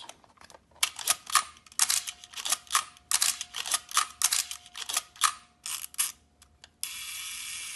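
Nikon F2 35mm film SLR being worked by hand: a quick, irregular run of sharp mechanical clicks from its shutter, advance lever and controls. Near the end the clicks stop and a steady hiss sets in.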